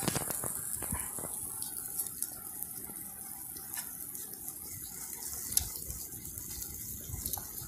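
Steady rush of flowing river water, with a few faint clicks over it.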